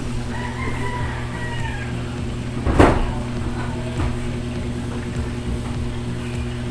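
One long rooster-like crowing call about half a second in, over a steady low hum, with a short burst of noise about three seconds in as the loudest moment.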